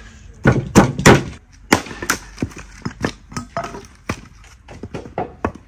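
Axe splitting firewood on a log chopping block: three heavy strikes in quick succession near the start, then a long irregular run of lighter knocks as the wood is chopped smaller and the pieces clatter.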